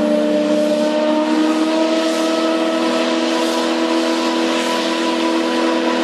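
The Delta Queen steamboat's steam whistle blowing one long blast: a deep chord of several tones whose pitch edges up slightly, over a hiss of escaping steam.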